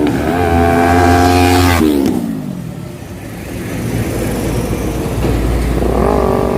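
Yamaha R3 parallel-twin engine through an aftermarket slip-on muffler, revved and held for a couple of seconds, then dropping back with a falling pitch before revving up again near the end.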